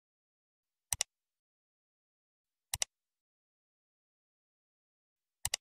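Three mouse-click sound effects, each a quick double click, with dead silence between them: about a second in, at about three seconds, and at the very end. They are the clicks of an animated subscribe button and notification bell.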